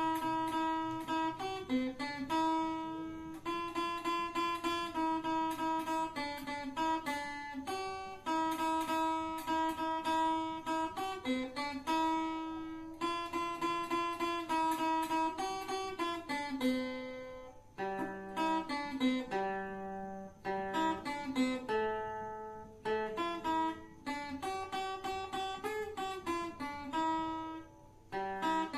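Acoustic guitar playing a melody of plucked notes in a steady rhythm, each note ringing and fading, with a brief break about 18 seconds in.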